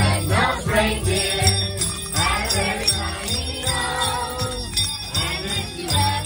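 Christmas song with sleigh bells jingling over a steady beat and a singing voice, played loud through a sound system.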